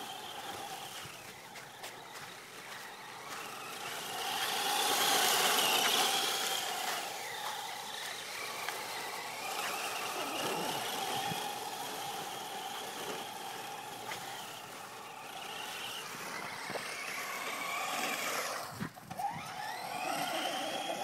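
Traxxas Slash 4x4 RC truck's electric motor and drivetrain whining, the pitch rising and falling as the throttle is worked, with tyre noise on the ground. It is loudest about four to six seconds in, when it passes close; near the end it cuts out briefly and spins back up.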